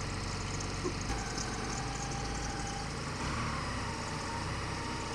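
Telehandler engine running as its boom lifts a large steel form panel on straps. The engine note changes about a second in, when the lift starts, and a thin whine runs alongside from then on.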